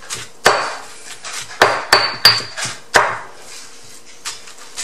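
Stone pestle knocking into a stone mortar as steamed tilapia is pounded to shreds: about five sharp, irregular knocks, a quick pair of them about two seconds in, some with a brief ring.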